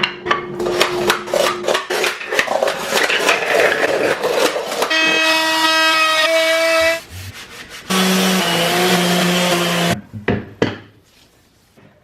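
Woodshop sounds of sawing and rubbing on wood with many quick knocks, then a few seconds of sustained tones. A few sharp knocks come near the end.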